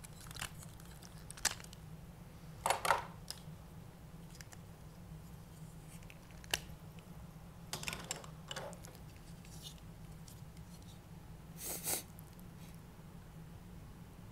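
Parts of Power Rangers Legacy Collection Megazord and Dragonzord toy robots clicking and scraping as they are handled, pulled off and fitted together: scattered short clicks and brief scrapes a second or a few seconds apart, over a low steady hum.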